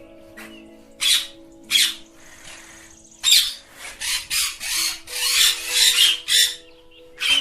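Ringneck parrots screeching in short, harsh calls: two about a second apart, then a quick run of a dozen or so in the second half.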